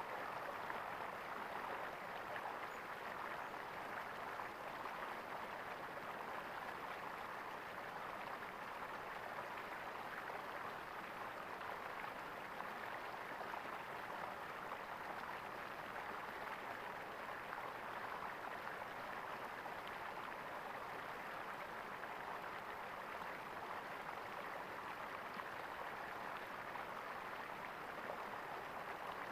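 Water gurgling and rushing steadily over stones, an even, unbroken flow.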